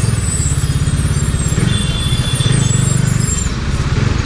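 Bajaj Dominar 400's single-cylinder engine and exhaust running steadily as the motorcycle rides along, a rapid even pulsing.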